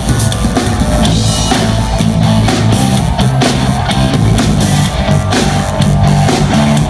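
Live rock band playing an instrumental passage: drum kit, electric guitar and bass, loud and steady.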